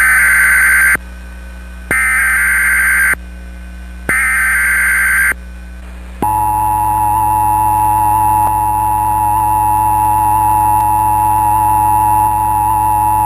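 Emergency Alert System opening tones. First come three roughly one-second bursts of the SAME digital header, a harsh buzzing data noise, with short pauses between. About six seconds in, the steady two-tone EAS attention signal starts and holds. The header announces an Amber Alert child abduction emergency activation.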